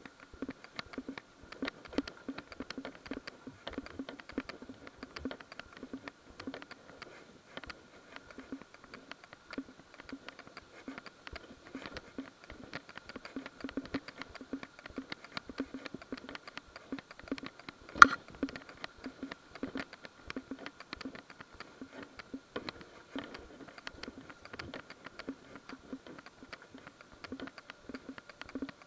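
Footsteps through dry leaves and brush, heard as a dense, uneven run of crackles and clicks with rustling handling noise from a body-worn camera, over a faint steady tone. One sharp, louder click about eighteen seconds in.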